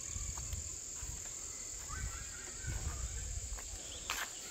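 Insects chirring: a steady, continuous high-pitched drone, with irregular low rumbling underneath and a sharp click about four seconds in.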